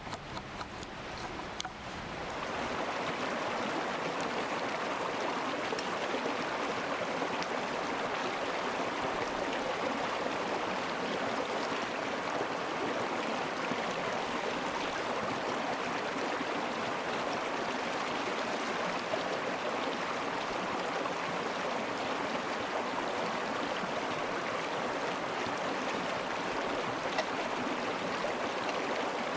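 Mountain stream flowing, a steady rush of water that swells up about two seconds in and then holds even.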